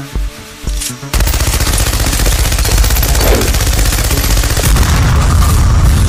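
Animal stampede sound effect: a dense rumble of many hooves pounding, breaking in suddenly about a second in and staying loud. Music with a steady beat plays under it at the start.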